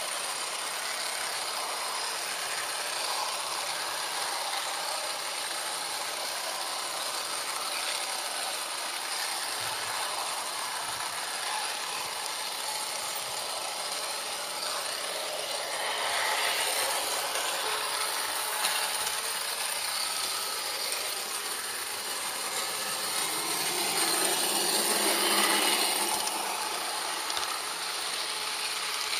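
HO scale model train running along the track, a steady mechanical rattle of its wheels and drive heard close up from on board, swelling louder twice in the second half.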